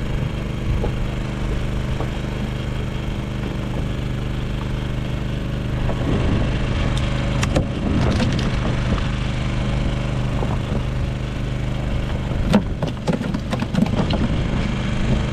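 A steady engine hum runs throughout, with a cluster of knocks and thuds from about six to nine seconds in and again near the end, as a landed guitarfish thrashes on the wooden deck of the boat.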